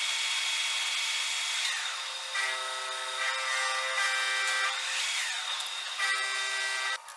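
Metal lathe running with a hissing, rubbing noise as a hand presses against the spinning chuck and workpiece. From a couple of seconds in, a squealing tone comes and goes in several stretches, and the sound cuts off suddenly near the end.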